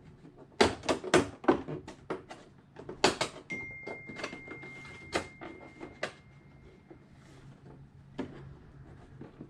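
Irregular sharp plastic clicks and knocks as an RC car's body is handled and pressed down onto the chassis and side skirts. A faint steady high tone runs for a few seconds midway.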